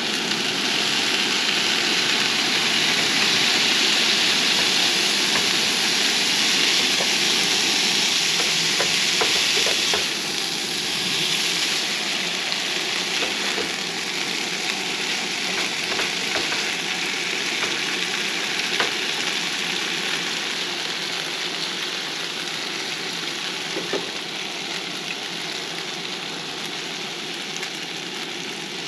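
Fried rice sizzling in a hot nonstick skillet on a two-burner camp stove. The sizzle is strongest for about the first ten seconds, then steadier and a little quieter while the rice is stirred with a spatula, with light scraping ticks.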